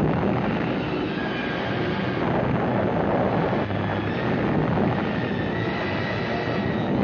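Continuous loud roar and rumble of an atomic test blast's sound and shock wave rolling over a trench.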